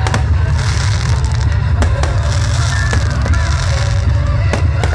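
Fireworks going off, with sharp bangs and a crackling hiss from about half a second in, over loud music with a heavy bass.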